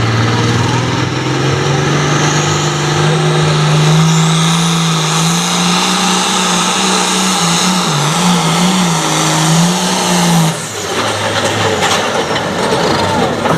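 Super farm class pulling tractor's diesel engine running hard under load, its pitch climbing over the first five seconds, then wavering up and down, then dropping off sharply about ten and a half seconds in.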